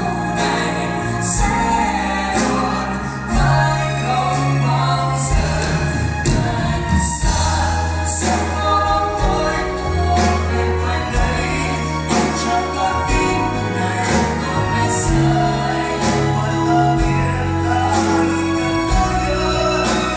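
A live band playing a pop love song: held bass notes changing every second or two, a drum kit with cymbal hits, and sustained melodic parts above.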